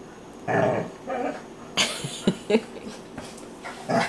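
Two dogs play-fighting and mouthing each other on a dog bed: a few short growls and grumbles, a sharp huffing exhale about two seconds in, then a couple of quick clicks and one more short growl near the end.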